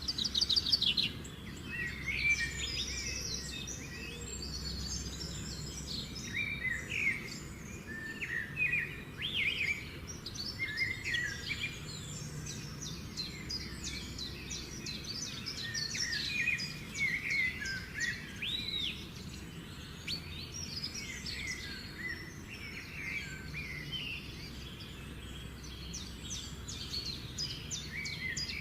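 Several birds chirping and singing at once, quick overlapping chirps and trills, over a steady low background rumble.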